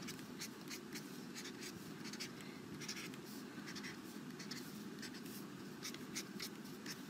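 Felt-tip marker scratching across paper in quick short zigzag strokes, several strokes each second.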